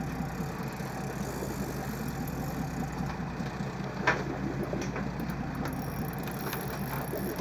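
Boat engine running steadily at low revs, with a single short knock about four seconds in.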